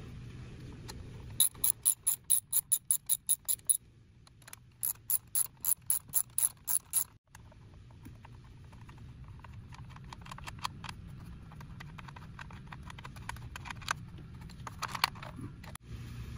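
A hand ratchet wrench clicks in quick runs of about five clicks a second while it loosens the bolts holding an engine's plastic top cover. There are two loud runs in the first seven seconds, then fainter, scattered clicking.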